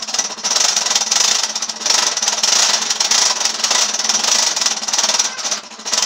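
Handheld electric drill running steadily, with a motor hum under a loud, high grinding noise, for nearly six seconds, then stopping shortly before the end.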